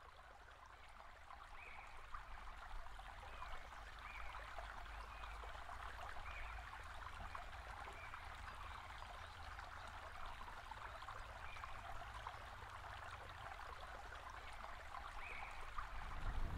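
Faint outdoor ambience: a steady rushing noise like running water, fading in over the first couple of seconds, with faint short chirps every second or two and a low rumble beneath.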